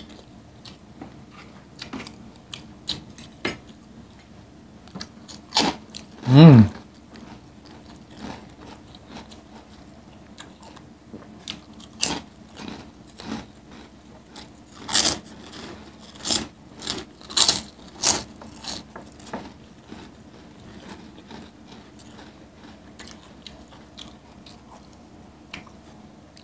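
Close-miked eating: chewing and mouth clicks, with loud crisp crunches of crunchy chips bitten and chewed between about twelve and eighteen seconds in. A short hummed 'mm' comes about six seconds in.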